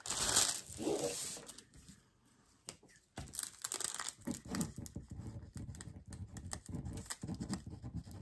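Plastic packaging of a diamond painting kit crinkling as it is handled, with a brief lull about two seconds in, then softer rustling and handling noise.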